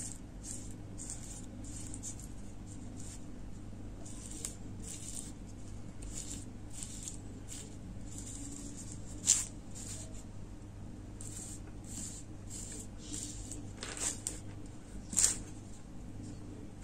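Flat paintbrush stroking glue varnish over a diamond-painting surface of resin rhinestones: soft, repeated brushing swishes, with two sharper clicks, about nine and fifteen seconds in.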